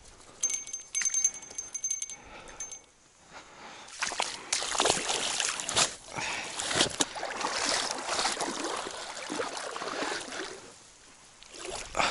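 Boots wading through shallow river water, sloshing and splashing with each step from about four seconds in. Before that, a short run of fast light clicks with a thin high tone.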